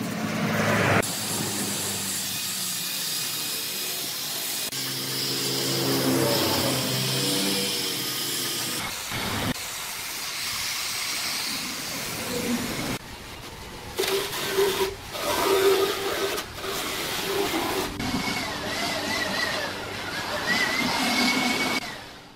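Electric angle grinder with a sanding disc working the carved hardwood table, heard as a string of short clips that cut abruptly from one to the next. The grinding hiss changes in pitch as the disc bears on the wood.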